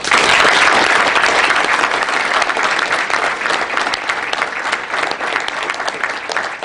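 Audience applauding, a dense clatter of many hands clapping that starts all at once and slowly thins out.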